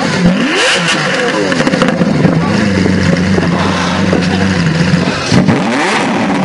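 Supercar engines revved in quick blips, the pitch jumping and falling back, about half a second in; the engine then settles into a steady idle, and another sharp rev blip comes near the end.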